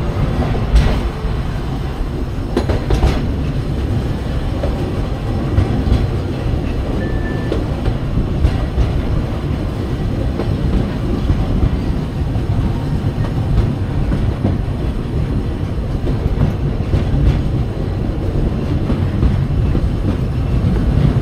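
Narrow-gauge steam train's open passenger car rolling steadily along the track, its wheels on the rails giving a continuous low rumble with a few scattered clicks.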